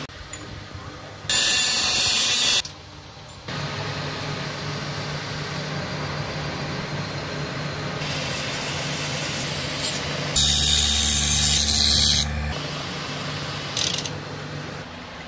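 Small lathe running steadily, spinning the ice pick's wooden handle, broken twice by loud hissing bursts of about two seconds each.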